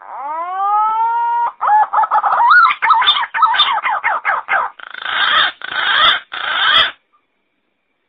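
Green pigeon song: a whistled note that rises and is held for about a second and a half, then a run of quick wavering whistles, ending in three rough, grating notes before it stops.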